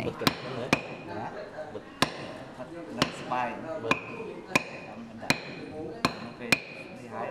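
Sharp taps of a chisel struck with a mallet, cutting through the hide of a large leather shadow puppet laid on a wooden block: about ten strikes at an uneven pace of one every half second to a second.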